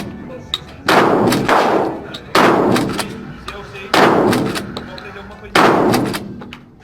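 Shotgun fired four times in steady succession, about one shot every second and a half, each blast followed by a long echoing tail.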